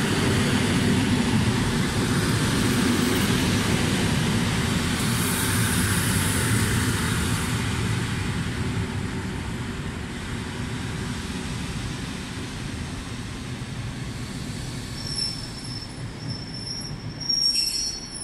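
Pafawag EN57 electric multiple unit rolling along the platform: a steady rumble of wheels on rail that slowly fades as the train slows, with a thin high squeal in the last few seconds.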